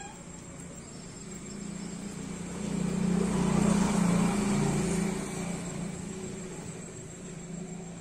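A road vehicle passing by: its engine and tyre noise grows over a couple of seconds, is loudest in the middle and fades away again.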